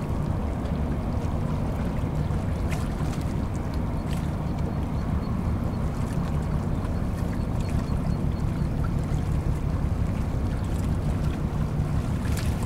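Harbour tugboats' diesel engines running with a steady low drone while helping a container ship turn.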